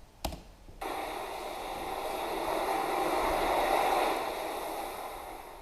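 Opening of an electronic dubstep track: after a single click, a hiss of noise swells for a few seconds and then fades away.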